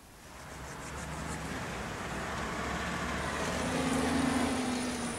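Road traffic in a city street fades in over the first second or so: vehicle engines running as a steady rumble, with a held engine hum coming in about three seconds in.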